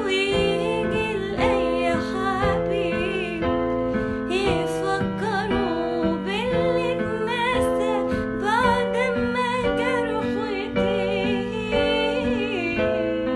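A woman singing an Arabic song with ornamented, wavering runs over a piano accompaniment.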